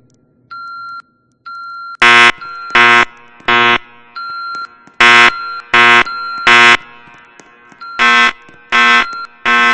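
Fire alarm horns sounding the temporal-three evacuation signal: three short, loud, buzzy blasts, then a pause, repeated three times. A quieter steady high beep sounds in the gaps between the groups. This is the standard signal to evacuate the building.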